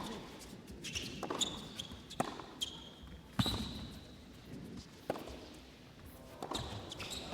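Tennis ball being hit back and forth in a rally: sharp racket strikes and court bounces, one every second or so, the loudest about three and a half seconds in.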